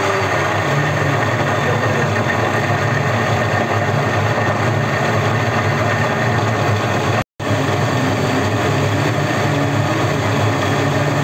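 Electric mixer grinder running at speed, grinding onions and garlic in its large plastic jar: a loud, steady motor whine with the churn of the chopping. It cuts out for a moment about seven seconds in, then runs on.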